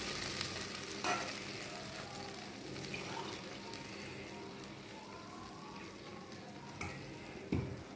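Chopped onion sizzling gently in oil in a kadai, with mustard and cumin seeds from the tempering, slowly growing quieter. A few small clicks, and a light knock near the end.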